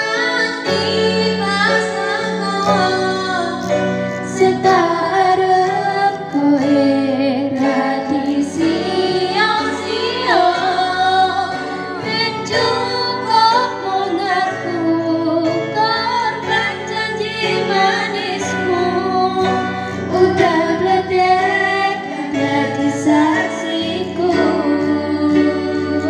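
A female voice singing a pop song to acoustic guitar accompaniment.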